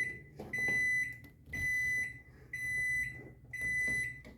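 Microwave oven beeping as its cycle ends: a high, steady beep about half a second long, repeated about once a second, four times.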